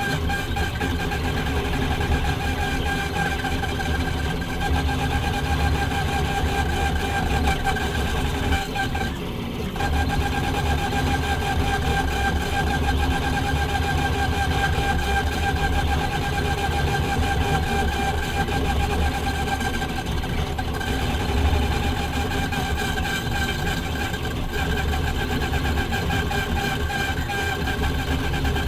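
6040 CNC router milling plastic: the spindle runs with a steady, slightly wavering whine over the rumble of the machine moving through its toolpath, with two brief dips in the sound, about a third and about two thirds of the way through.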